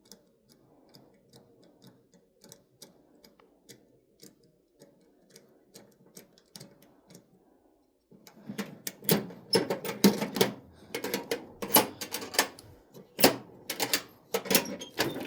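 Faint, fairly even ticking, then from about eight seconds in a loud, busy clatter of metal tools and clicks, as of rummaging through a toolbox drawer.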